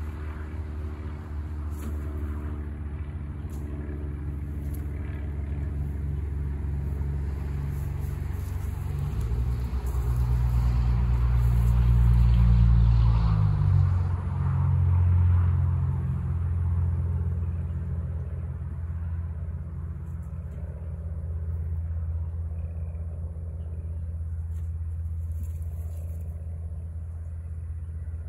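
Low engine rumble that runs steadily, swells and shifts in pitch between about ten and fourteen seconds in, then settles back.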